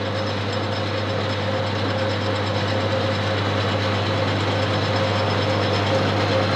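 Boxford AUD lathe running steadily with its screw-cutting drive engaged, the change gears and leadscrew feeding the carriage at a very fine 0.2 mm pitch. The sound is an even mechanical running noise with a steady hum under it.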